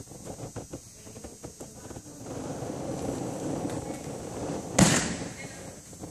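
A gymnast's bare feet tapping lightly on a balance beam, then one loud thud a little before five seconds in as she lands her dismount on the mat.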